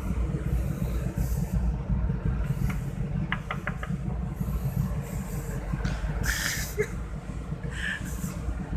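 Wind buffeting the microphone on the deck of a ship under way, over a steady low hum from the vessel's engine. A few quick light clicks come a little past three seconds in.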